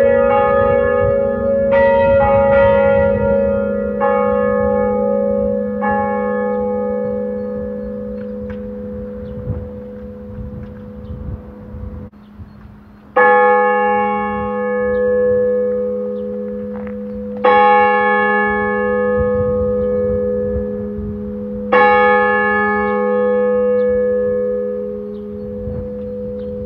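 Church tower bell tolling. Several strikes come close together at first and the ringing slowly dies away, then three loud single strokes follow about four seconds apart, each left to ring on.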